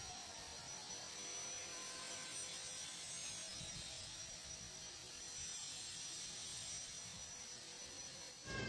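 Faint, steady background hum with a hiss and a few thin, steady tones.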